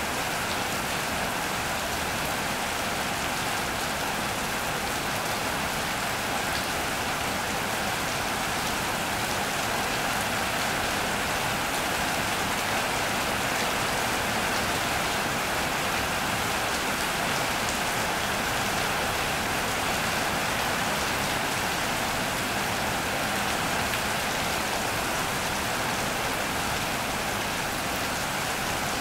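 Steady rain drumming on an iron roof and splashing on wet paving: a dense, even patter of countless drops with no breaks.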